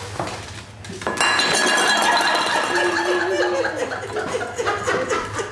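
Empty aluminum Bud Light bottles knocked over on a wood floor by a small dog running into them: a sudden clatter about a second in, then the bottles ring with a metallic clink for over a second.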